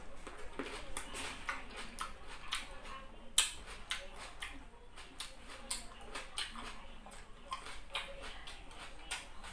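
Close-miked open-mouthed chewing, a run of wet mouth clicks and lip smacks with one sharper click about three and a half seconds in.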